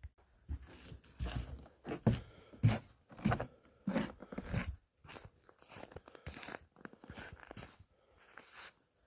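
Snow crunching in a quick run of short crunches, about two a second and loudest in the first half, then fainter and more scattered.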